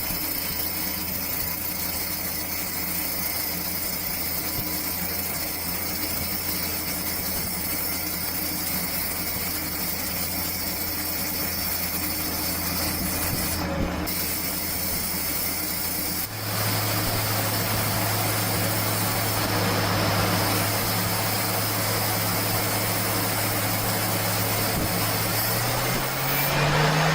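CNC machine running as it machines brass: a steady hum over a hiss. About sixteen seconds in the hum jumps to a louder, higher pitch, and it rises again near the end.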